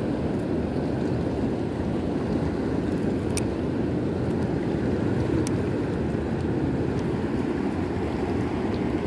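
Steady rush of a mountain river's current flowing over rocks. Two faint clicks stand out against it, one about a third of the way in and one about halfway.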